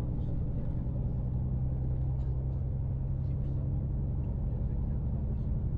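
Intercity bus's diesel engine running with a steady low drone.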